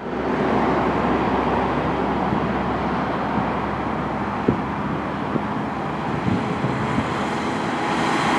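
Steady road traffic noise with an approaching fire engine's diesel engine, growing a little louder near the end.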